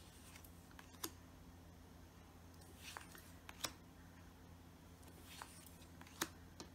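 Tarot cards being handled on a wooden table: a few light taps and soft slides as cards are laid down and picked up, over a faint low room hum.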